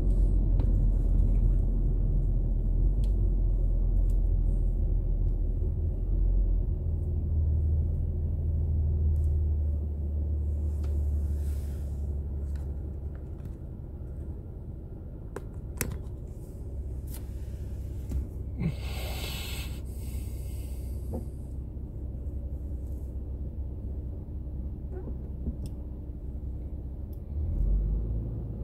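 Low, steady rumble of a car's engine and road noise heard from inside the moving car, getting quieter about ten seconds in. A brief hiss lasts about two seconds near the middle.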